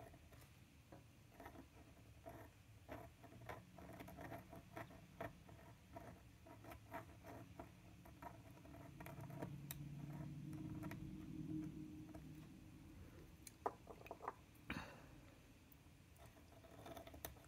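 Faint, irregular scratching and ticking of a metal dip-pen nib on card as letters are written. A faint low hum swells and fades in the middle.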